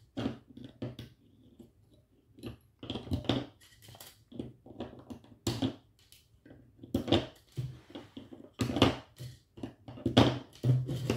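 Flush cutters snipping the excess wire leads of soldered-in capacitors on a circuit board: a series of sharp clicks at uneven intervals.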